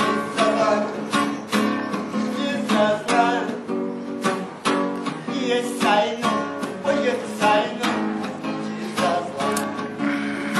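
Nylon-string classical guitar strummed in a steady rhythm, chords ringing between the strokes.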